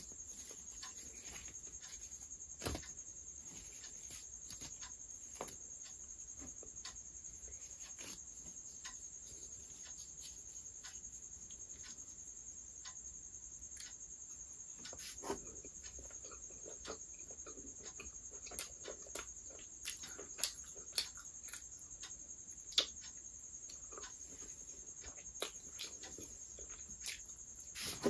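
Eating sounds: soft tearing of thin rumali roti near the start, then scattered wet clicks of chewing and lip smacking, thickest around two-thirds of the way in. A steady high-pitched whine sits beneath them.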